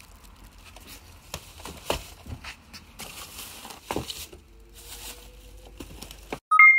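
Plastic takeout bag crinkling and rustling as it is lowered into a paper bag, with a few light knocks. Just before the end, a short loud electronic beep on two pitches.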